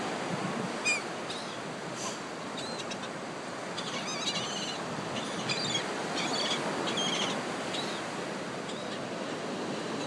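Ocean surf and wind as a steady hiss, with gulls giving short, wavering high calls several times in the middle.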